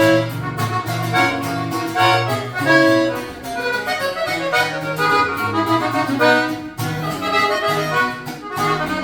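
Norteño-style band music: an accordion plays the melody over a steady bass line, the instrumental introduction to a corrido.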